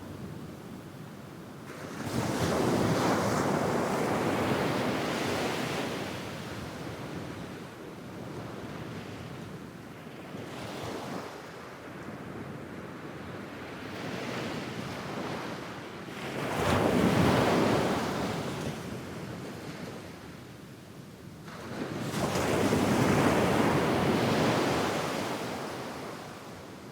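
Medium waves breaking on a sandy beach and washing up the sand: three louder surges, each rising quickly and fading over a few seconds, over a steady wash of surf.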